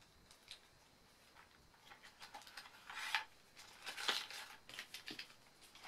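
Hands handling plastic packaging: a run of irregular rustles, crinkles and small clicks that starts about two seconds in and is loudest about three and four seconds in.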